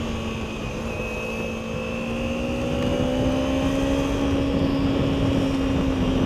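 Kawasaki Ninja 300's parallel-twin engine running at a steady cruise, its pitch rising a little a couple of seconds in, with wind rush on the helmet microphone.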